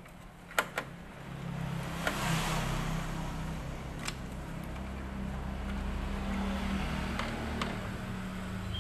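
A motor running steadily, starting about a second in, with a few light clicks before and during it.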